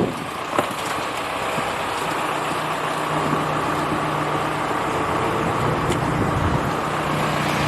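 A motor engine running steadily, a continuous low hum under an even rushing noise.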